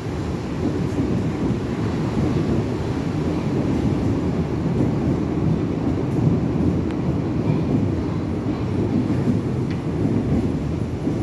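Berlin U-Bahn train on the U8 moving along an underground station platform: a steady, loud, deep rumble of its wheels and running gear.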